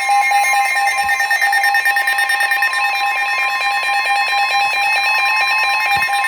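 NOAA Weather Radio's steady 1050 Hz attention tone, with the weather radio receiver's own warning alarm beeping rapidly over it. This signals an incoming warning broadcast.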